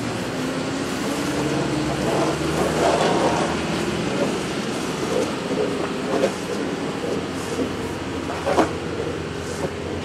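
A snow plow truck's engine running with a steady drone, with a few sharp scrapes now and then.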